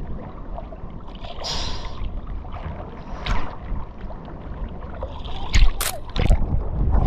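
Seawater sloshing and splashing around a camera held in the surf, with a low churning rumble. There are hissing washes about a second and a half in and again past three seconds, and a couple of sharp splashes near the end.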